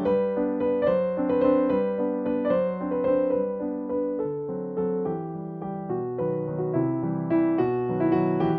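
Background music: a gentle piano-style tune with a steady run of notes.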